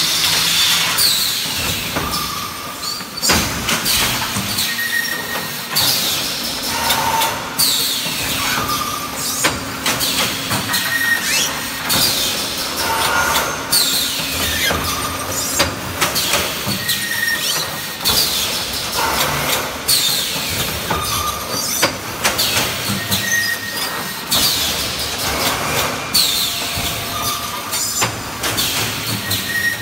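Vertical EPS 3D panel wire mesh welding machine running through its cycle. Its pneumatic welding heads and clamps work in a steady rhythm, with a short high sound falling in pitch about every two seconds, mixed with clicks and knocks.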